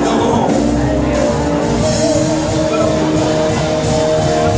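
Loud live gospel music from a church band: drums with cymbals keeping a beat under held, wavering chords.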